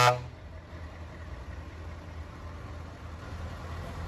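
A horn blast cuts off abruptly right at the start, leaving the steady low rumble of truck diesel engines idling.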